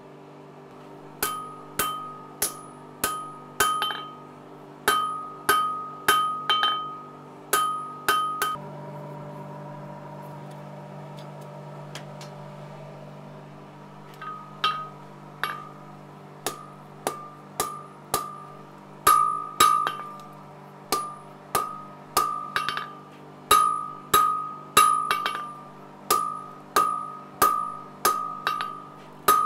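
A blacksmith's hand hammer strikes a hot steel bar on the anvil as the frying-pan handle is drawn out, each blow giving a bright ring. The blows come in runs of about two a second. They stop about eight seconds in, leaving a steady hum, and start again about fourteen seconds in.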